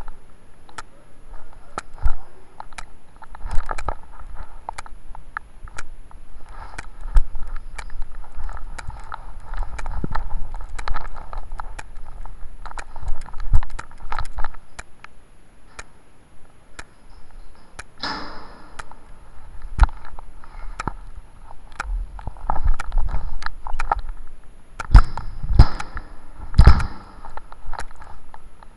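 Irregular, muffled knocks and clicks with rustling. A louder noisy burst comes about two-thirds of the way in, and several hard knocks come near the end.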